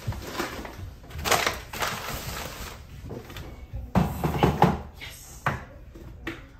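Clear plastic food-storage canisters being handled and set onto a kitchen cabinet shelf as the cabinet door is worked. A scraping rustle about a second in, then a quick cluster of knocks and clunks about four seconds in.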